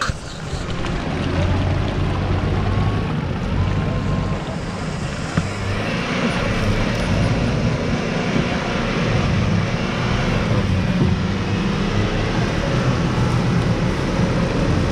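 Mitsubishi L200 pickup engine running hard under load while its mud-terrain tyres spin and churn in deep mud, stuck in a rut and being pulled out on a tow line. The churning noise grows louder about six seconds in.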